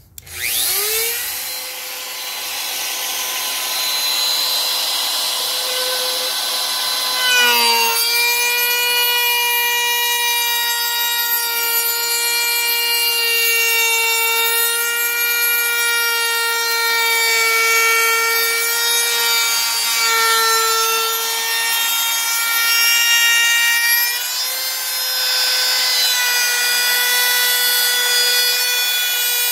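Trim router with a quarter-round bit starting up and spinning up to speed, then routing a round-over along the edge of a wooden window stool. Its steady whine drops in pitch under load about seven seconds in and rises again a few seconds before the end.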